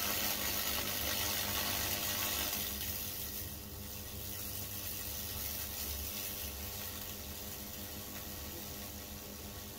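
Fractal (Lichtenberg) burning on a wet cedar board: high-voltage current arcing through the wood makes a steady sizzling hiss over a constant electrical hum. The hiss softens about three seconds in.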